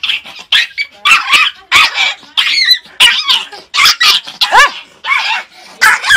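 A small Pomeranian puppy yapping over and over in rapid, high-pitched barks, about two or three a second.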